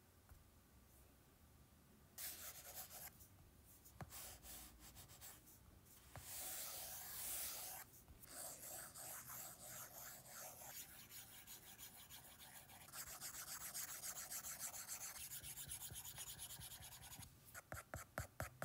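A stylus nib rubbing and scratching across an iPad screen in drawing strokes, faint, with stretches of longer strokes. Near the end come quick short strokes, several a second.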